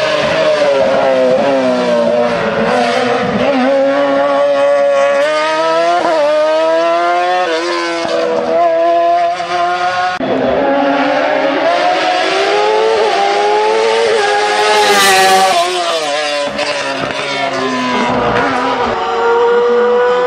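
BRC sports-prototype race car accelerating hard up a hillclimb. Its engine pitch climbs and then drops sharply at each upshift, over and over. About halfway through the sound breaks off abruptly into another run of the car, which is loudest as it comes closest.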